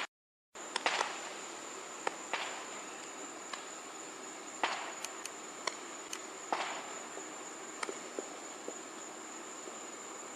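Firecrackers and fireworks popping irregularly, about a dozen sharp cracks, some trailing off briefly like distant bangs, over a steady high insect trill. The sound drops out for about half a second at the start.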